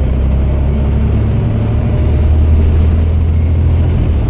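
Scania OmniCity single-deck bus's diesel engine running under way, heard from inside the passenger cabin as a steady low drone, easing slightly near the end.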